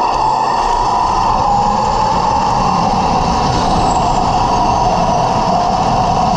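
Heng Long T-90 1/16 RC tank driving, heard close up from its own hull: a steady whine of its electric drive motors and gearbox, dipping and rising in pitch as it moves off the bridge and turns onto the grass.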